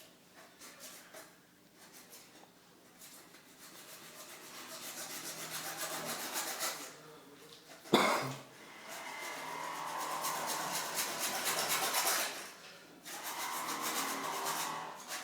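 A hand tool rasping against a hard surface in long stretches of several seconds, with a single sharp knock about eight seconds in.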